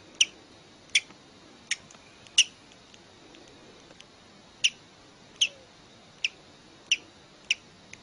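A hatching chick peeping from inside its cracked egg: about nine short, high-pitched peeps at irregular intervals.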